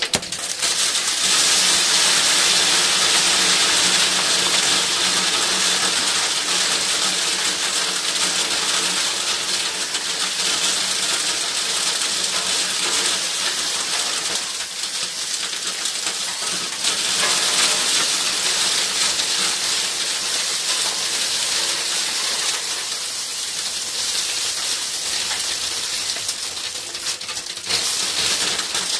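Acorns pouring out of a hollow metal antenna tube in a long, dense rattling stream of small hard hits. It starts abruptly and stops near the end.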